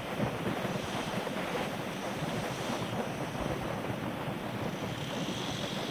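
Wind rushing over the microphone of a camera moving along a road: a steady, even rushing noise.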